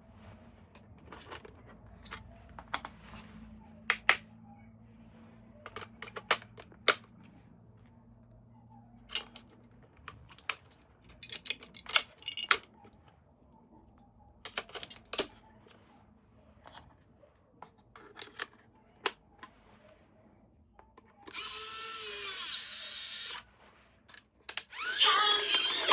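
Scattered clicks and taps of hands handling a toy and its plastic packaging, with a louder stretch of noise about 21 seconds in.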